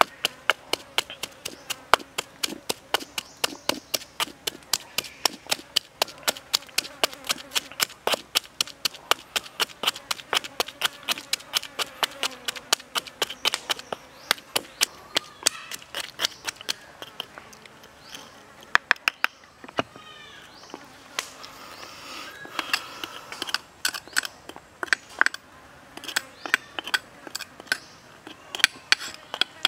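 Wooden pestle pounding a wet mash of herbs and chilli in a stone mortar: sharp knocks about three a second, turning slower and uneven after the middle, with a short pause about two-thirds of the way through before the knocks resume.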